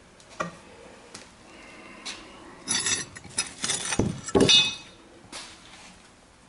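Metal tailgate hardware clinking and knocking as it is worked with tools. There are scattered light clicks, then a cluster of louder metallic strikes that ring briefly, about three to four and a half seconds in.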